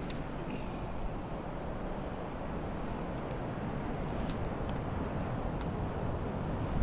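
Short, high chirps repeat about twice a second over a steady background hiss, with a few faint clicks.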